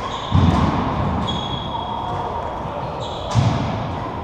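Sports shoes squeaking and stepping on a wooden badminton court floor between rallies. Two dull thuds, about half a second in and again near the end.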